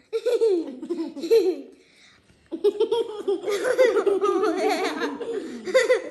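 Children laughing and giggling in two bouts: a short one at the start, then a longer, louder one from about two and a half seconds in.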